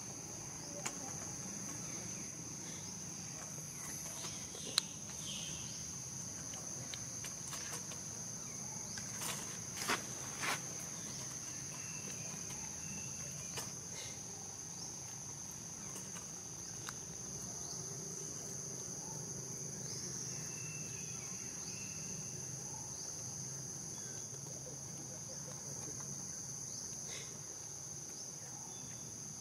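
Insects droning steadily in one high, even tone, with a few short sharp clicks scattered through: the loudest about five seconds in, a couple more about ten seconds in.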